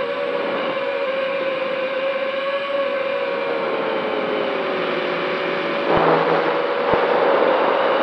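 Brushless motors and propellers of a modded MJX Bugs 3 quadcopter, heard from its onboard camera, whining steadily over wind rush. The pitch sags slowly through the middle, then about six seconds in the whine climbs back and gets louder with more wind noise as the motors speed up.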